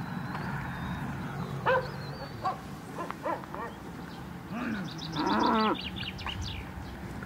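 Farm animals calling: a few short calls, then a louder, longer wavering call about five seconds in, with birds chirping high over it.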